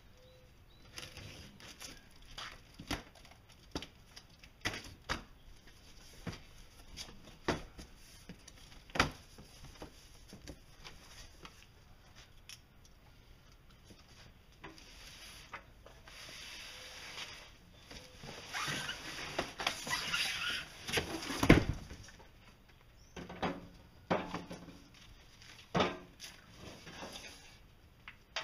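A cardboard shipping box being opened and unpacked: scattered knocks and scrapes of cardboard flaps and contents, with stretches of rustling packing paper around the middle. The loudest sound is a single heavy knock about two-thirds of the way through.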